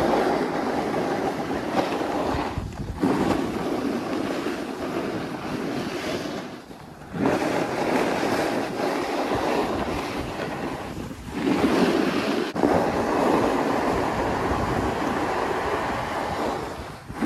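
Wind rushing over the microphone and skis hissing and scraping on the piste during a fast downhill run, with a few short lulls in the noise.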